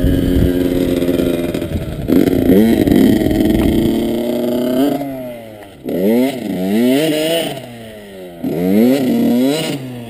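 Honda CR85 two-stroke dirt bike engine running, holding a steady note at first, then revving up and down over and over from about halfway.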